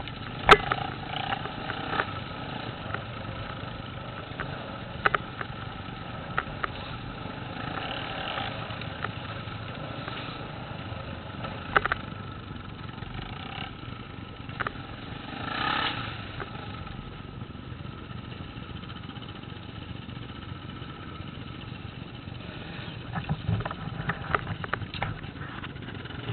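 Off-road motorcycle running along a rough dirt lane, with scattered sharp knocks and clicks. The sound swells briefly about 16 seconds in.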